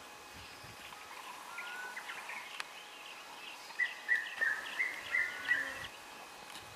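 Birds calling in the bush: scattered short chirps throughout, with a run of about six louder chirping notes a little past halfway. There is a single sharp click about two and a half seconds in.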